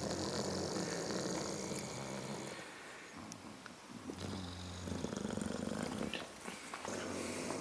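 Pets snoring slowly and low: one long snore over the first two and a half seconds, a quieter stretch, then another snore about four and a half seconds in and a third near the end.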